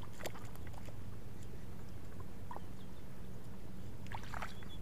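Splashing and sloshing in shallow muddy water as a person wades and grabs at fish by hand. There is a short splash about a quarter second in and a louder cluster of splashes near the end, over a steady low rumble.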